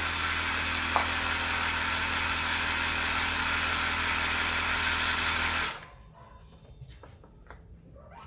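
Multilaser 12 V portable mini air compressor running steadily with a low hum while inflating a car tyre, with the tyre at about 30 psi. It is switched off about two-thirds of the way in and stops suddenly.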